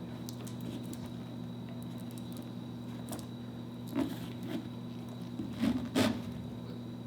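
Handling noise from relacing a wakeboard boot: a few short knocks and scrapes about four seconds in and again near six seconds, the loudest near six, over a steady low hum.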